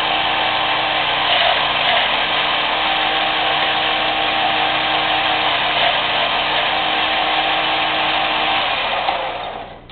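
Small vertical belt sander running steadily, its electric motor humming under the rush of the belt, as the threaded ends of 1/4-20 steel bolts held in a bevel fixture are ground against the belt. The sound dies away quickly near the end.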